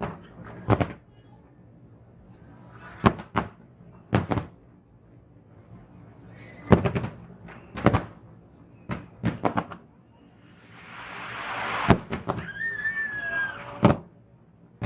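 Aerial fireworks bursting: about a dozen sharp booms, some in quick pairs and triplets. From about ten seconds in, a hiss swells up with a short whistling tone over it.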